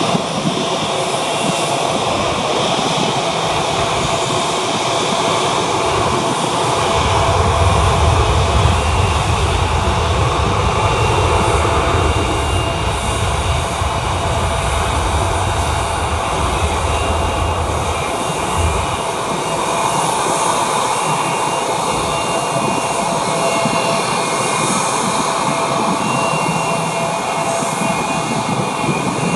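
Jet airliners' engines running as the planes move along the runway and taxiway: a continuous jet noise with steady whining tones, and a deeper rumble from about 7 to 18 seconds in.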